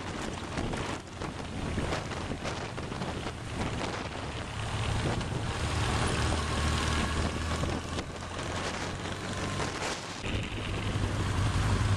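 Wind rushing over the microphone of a moving motorcycle, over the steady low drone of motorcycle engines at cruising speed. About ten seconds in, the wind drops away and the low engine hum becomes the main sound.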